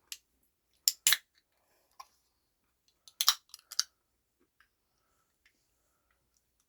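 Sharp clicks and crackles of a drink container being handled and opened. There are a few single clicks in the first two seconds, then a quick cluster of clicks a little past three seconds in.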